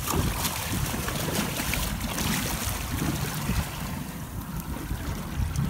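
Wind rumbling on the microphone over sea water splashing and lapping at the boat's side, where a hooked bluenose is being brought up at the surface.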